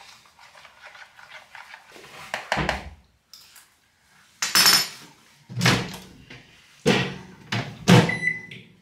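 Spoon scraping and clinking in a bowl as whey protein is stirred into oats, then a run of loud knocks of the bowl and spoon on the counter and at the microwave, and a short beep near the end.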